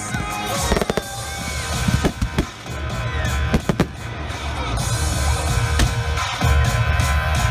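Fireworks going off with scattered sharp bangs and a few short whistles, over music with a heavy bass beat.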